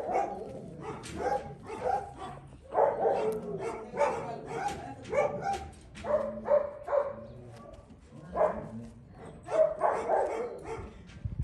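Dogs barking in a run of short barks, about one a second and unevenly spaced.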